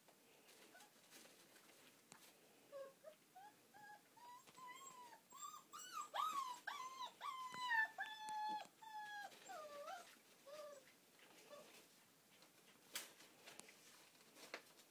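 Puppy whining in a string of short, high-pitched cries that start a few seconds in, are loudest in the middle, and tail off.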